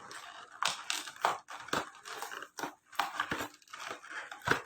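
Headset packaging being handled and opened: irregular crinkling and rustling, with a sharper crunch near the end.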